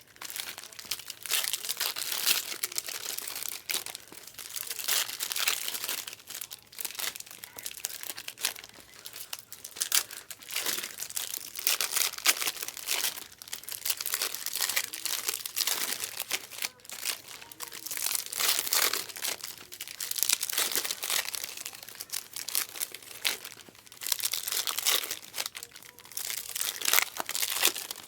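Plastic and foil wrappers of Panini Mosaic Fast Break basketball card packs crinkling and tearing as packs are handled and ripped open, in irregular rustling bursts.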